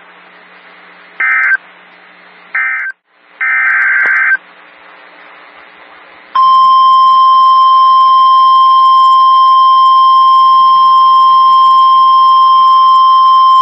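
NOAA Weather Radio Emergency Alert System signal: three short screeching bursts of SAME digital header data. About six seconds in, a loud steady single-pitch tone begins and holds; this is the 1050 Hz warning alarm tone that announces a new warning.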